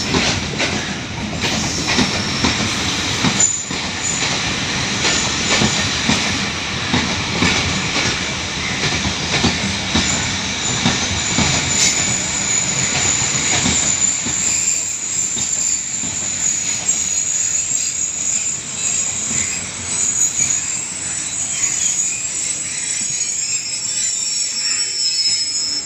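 Train rolling slowly on rails, its wheels knocking irregularly over rail joints and points. From about halfway a steady high-pitched wheel squeal sets in and runs on as the train slows.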